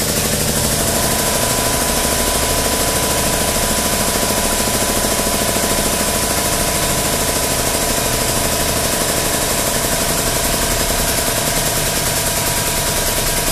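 Harbor Freight 8-ton air-over-hydraulic ram's air-driven pump running steadily as it extends the ram, a loud rapid chatter with hiss. The ram is slowing because the 4.6-gallon compressor feeding it is struggling to keep up.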